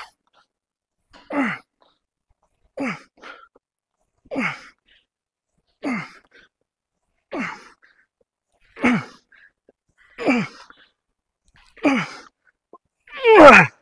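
A man's forceful grunts of effort during a set of seated cable rows, one on each pull, about every second and a half, each falling in pitch; the last one near the end is louder and longer, as the set nears failure.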